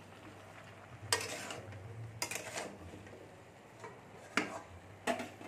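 A metal spatula scrapes and knocks against a metal kadai as chopped mixed vegetables are stirred, in a few separate strokes about a second apart.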